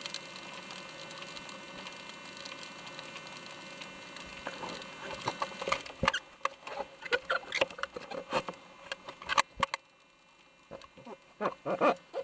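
A steady hum and hiss, then from about five seconds in, irregular sharp taps and crackles close to the microphone, with a short quiet gap near the end.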